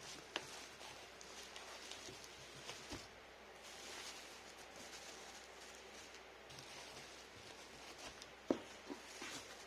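Faint rustling and handling noises with a few scattered light taps, the loudest a sharp knock about eight and a half seconds in: packaging being handled while a keyboard is packed.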